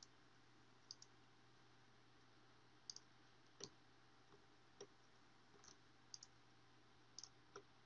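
Faint clicks of a computer mouse button, about a dozen scattered through, several in quick pairs, over near-silent room tone.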